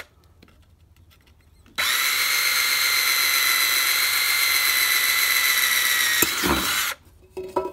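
Cordless drill starting about two seconds in and running steadily for about five seconds as it bores a hole through a rusty steel tin can, then stopping suddenly near the end.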